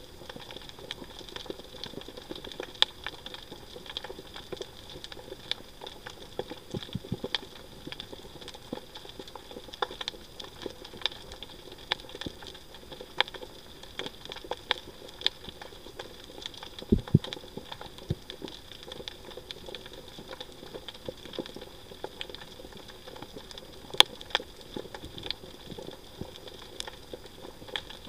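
Underwater reef ambience: scattered sharp clicks and crackles, a few each second, over a steady hiss. There is a dull low thump a little past the middle and a louder click near the end.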